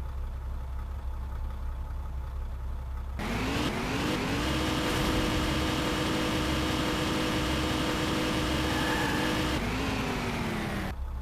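Car engine sound effect: the engine idles steadily, revs up with a rising pitch about three seconds in, holds at higher revs, then drops back to idle near the end.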